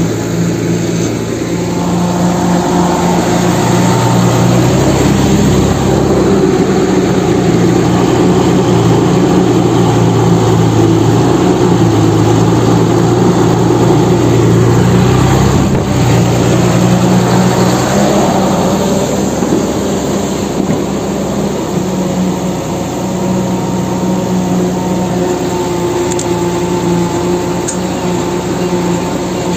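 Steady, loud engine drone like heavy machinery running, a little louder through the middle and easing off after about eighteen seconds.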